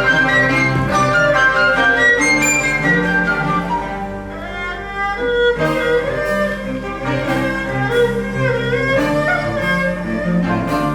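Chinese chamber sextet of erhu, dizi, pipa, yangqin, zhongruan and cello playing a piece in Taiwanese folk-song style: held low bowed notes under a melody, softening briefly about four seconds in, then a run of crisp struck and plucked notes.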